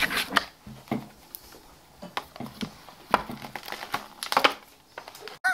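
A plastic slime bag and cardboard packaging being handled: irregular crinkling and rustling with scattered light clicks.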